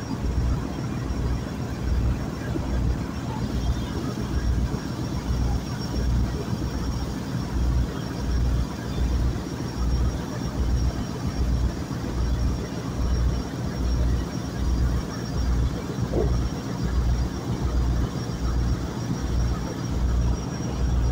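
River boat's engine running steadily, a low rumble that throbs in a regular rhythm a little over once a second.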